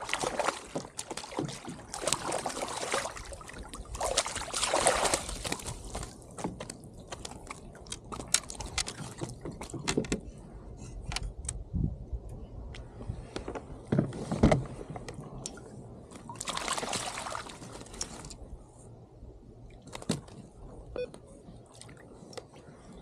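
Water sloshing and splashing around a fishing kayak, with scattered knocks and rustles from handling on the hull after a fish is landed.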